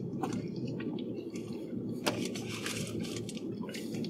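Steady low hum inside a car cabin, with a few faint clicks and small eating and drinking noises, one sharper click about two seconds in.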